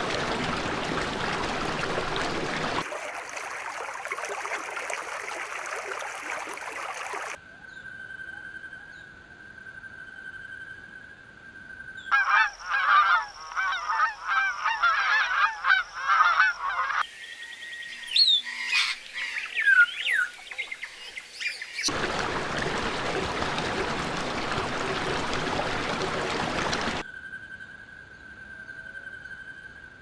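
A flock of Canada geese honking loudly and repeatedly for about five seconds around the middle. Before and after it come stretches of steady hiss, and right after the honking there are higher bird calls with quick sliding whistles.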